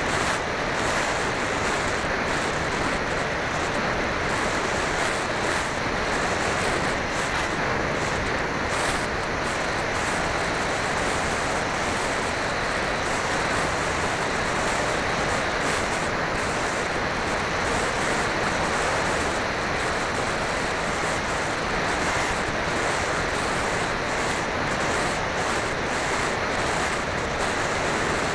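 Steady rushing wind noise on the microphone of a camera flying high over a lake, even and unbroken throughout.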